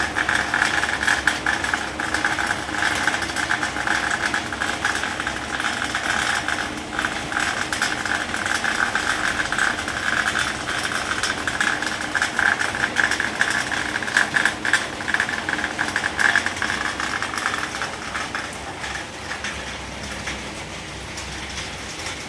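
Steady rain with a dense, fine patter of drops, easing a little near the end.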